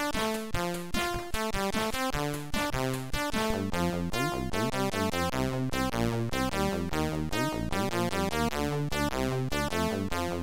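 Electronic music: synthesizer notes stepping through a melody over a steady beat.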